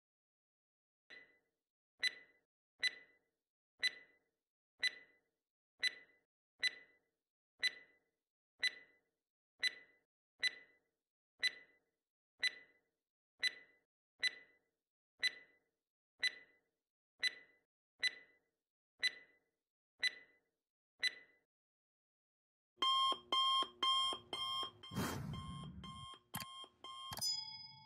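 Quiz countdown-timer sound effect: a sharp clock-like tick about once a second, some twenty times, then a rapid alarm-clock beeping for about four seconds as time runs out.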